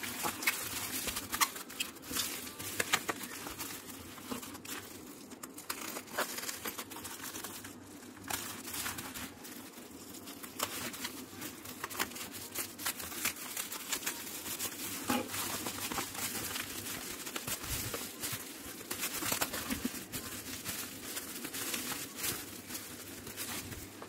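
Plastic bubble wrap crinkling and rustling as it is handled and unwrapped, with many scattered sharp crackles.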